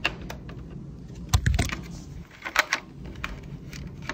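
Sharp plastic clicks and taps of AA batteries being handled and pushed into the slots of a battery charger, several in a row, with a dull thump about a second and a half in.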